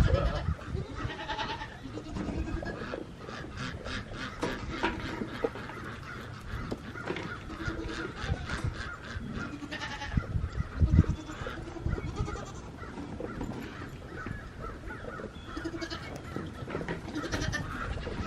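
A herd of Nigerian Dwarf goats bleating over and over, many short calls overlapping, with clatter and a few heavy low bumps, the loudest about eleven seconds in.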